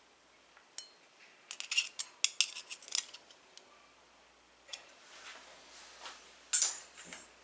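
Small metal door knob parts clicking and clinking together as they are handled and fitted: a quick run of sharp clicks, then a scrape and one louder click near the end.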